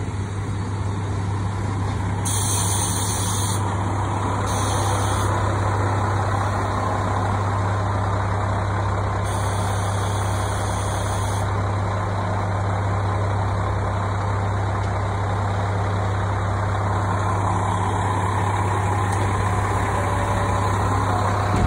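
Diesel railcar's engine running with a steady low hum as the train draws slowly along the platform and stands. Short bursts of hiss come three times in the first half.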